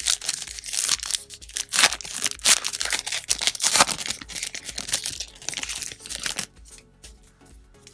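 Wrapper of a trading-card pack being torn open and crinkled by hand: a dense, crackly rustle that stops about six and a half seconds in.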